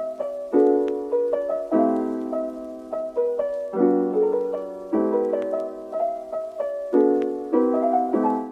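Piano music: chords struck about once a second, each left to die away, fading out at the end.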